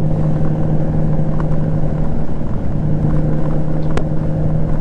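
Honda Gold Wing GL1500 flat-six motorcycle cruising at highway speed: a steady engine hum under constant wind rush on the microphone.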